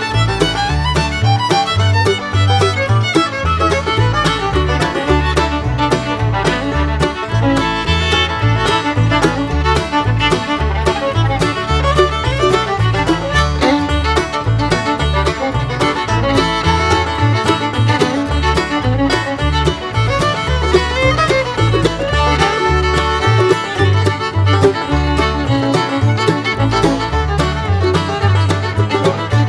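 Bluegrass background music: fiddle, banjo and guitar playing at a steady, lively pace.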